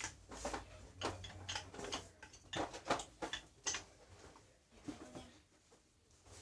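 Irregular light clicks and knocks, about a dozen spread unevenly, as of hard plastic objects being handled; no motor running.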